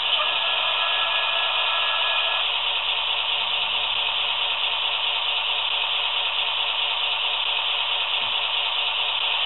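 The sound decoder of an H0-scale NMBS/SNCB class 55 diesel locomotive model plays a steady idling-engine sound through its small speaker. It is heard mostly as an even hiss over a low hum, with a faint whine during the first couple of seconds.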